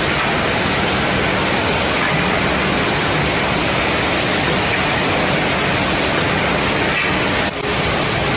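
Woodworking machinery running steadily: a dense, even noise with a faint low hum, dipping briefly about seven and a half seconds in.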